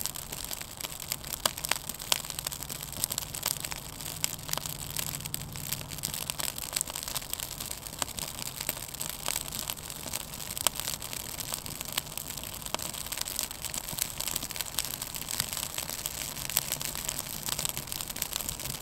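Small campfire of damp wood catching and growing: frequent irregular sharp crackles and pops as the flames take hold.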